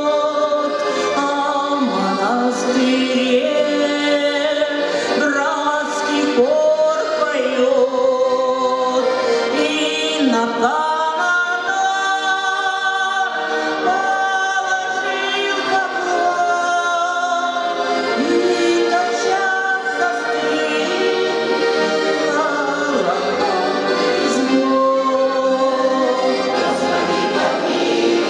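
A choir singing, several voices together in long sustained lines.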